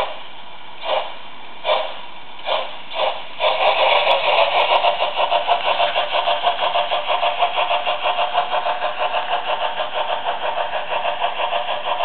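Märklin BR 10 model steam locomotive's sound decoder playing steam chuffs through its small loudspeaker as the locomotive pulls away: single chuffs coming quicker and quicker, then from about three and a half seconds in a fast, steady chuffing of about five or six beats a second.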